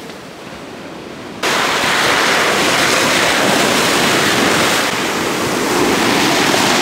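Sea surf washing onto a pebble beach, a steady rush of water. It is softer at first, then much louder and closer from about a second and a half in.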